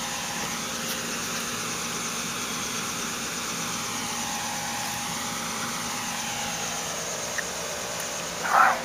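A steady, even mechanical hum, like a running motor or fan. A short, wavering high whine sounds near the end.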